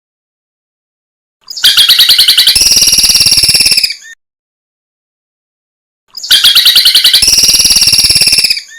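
Recorded songbird call played as training song: two loud, rapid trills of about two seconds each, with clean silence between them. Each trill steps up to a higher pitch partway through.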